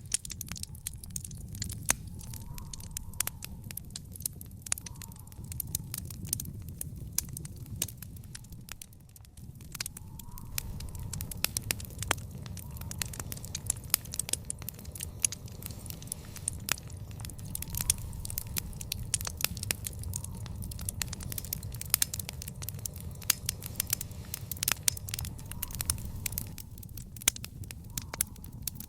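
Wood fire in a fire pit crackling, with many irregular sharp pops over a steady low rumble of the flames. The pops ease off briefly about a third of the way in.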